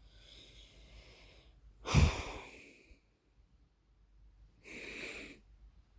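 British Shorthair cat snoring in its sleep. A faint hissing breath comes first, then a loud, sharp snore about two seconds in that fades over a second, and another noisy breath about five seconds in.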